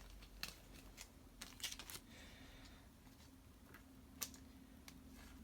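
Faint clicks and light plastic rustles of a trading card being handled and slid into a protective sleeve, a few separate ticks over a low steady hum.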